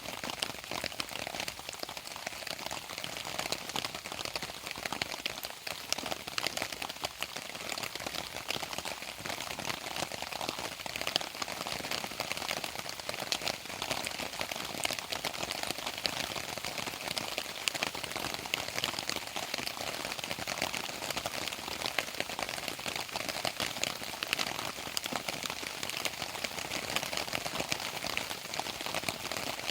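Steady rain, a dense, even patter of many drops landing on a surface.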